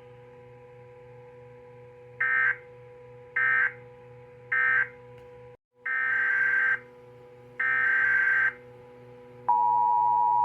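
Emergency Alert System SAME data bursts: three short buzzy screeches about a second apart, the end-of-message code closing the previous tornado warning. After a brief dropout come two longer screeches of a new alert header. About a second before the end, the steady two-tone EAS attention signal starts.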